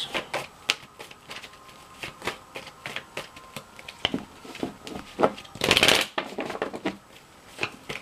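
Tarot deck being shuffled by hand: a quick run of card snaps and flicks, with one louder rush of cards lasting about half a second about three quarters of the way through.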